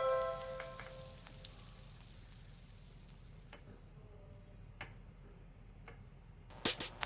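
Faint sizzling of salmon pan-frying, with a few light ticks. Background music fades out at the start, and music with sharp clicking beats comes in near the end.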